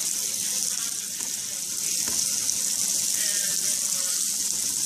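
Steady high-pitched hiss, with a metal spoon clicking faintly against the bowl once about two seconds in.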